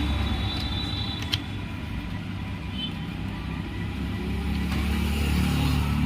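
Steady low rumble, with one sharp click a little over a second in.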